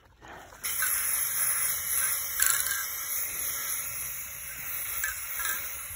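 Aerosol spray paint can fired through a Rust-Oleum Comfort Grip trigger handle: a steady hiss of paint spraying that starts about half a second in and eases slightly toward the end.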